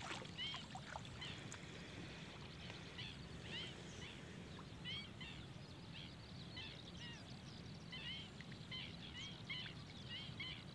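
Several birds calling, many short chirping notes repeated irregularly, over a low steady rumble.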